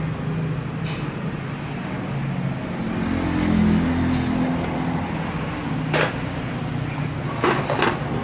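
A steady low mechanical hum that swells for about a second and a half around three seconds in, with a few sharp clicks, the loudest about six seconds in.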